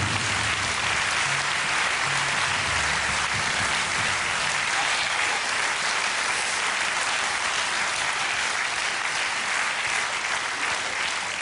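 Studio audience applauding steadily. The tail of music sounds underneath for the first few seconds.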